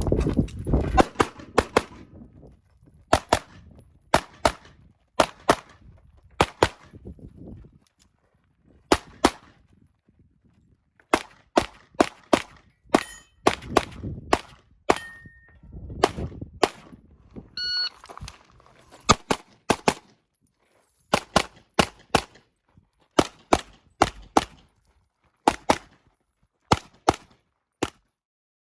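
Pistol shots fired mostly in quick pairs, with metallic dings from hits on steel targets. A short electronic beep about 18 seconds in starts a new string of fire.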